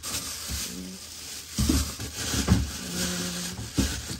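Someone rummaging through kitchen cupboards: a few dull thumps and knocks as things are moved about, over a steady hiss.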